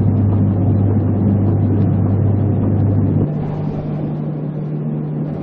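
Multihead weigher's vibratory feed pans running with a steady low hum as popcorn is fed along them. About three seconds in the sound changes abruptly to a quieter, slightly higher-pitched machine hum.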